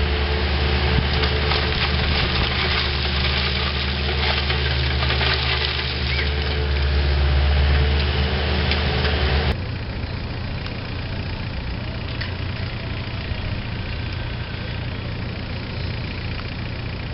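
Diesel engine of a Volvo compact excavator running steadily while its bucket scrapes and spreads crushed limestone over wire gabion baskets. About nine and a half seconds in the sound drops suddenly, and the engine carries on quieter.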